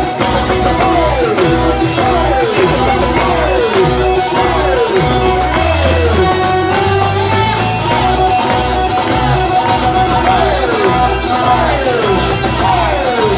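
Loud live band music with saxophone and keyboard over a steady bass line, the melody built on repeated falling slides in pitch.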